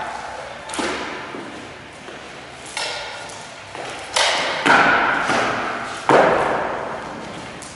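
Five uneven, heavy thuds of wood being struck, each ringing out in a large, empty, echoing room.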